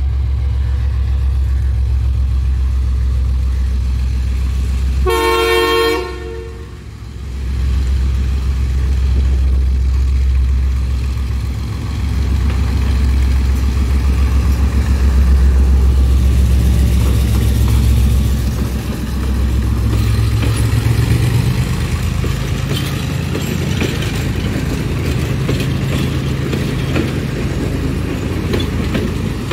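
Class M2 diesel locomotive's engine running as it pulls a train out, with one short horn blast about five seconds in. The engine note rises from about two-thirds of the way through, and near the end the carriages roll past with wheels clicking over the rail joints.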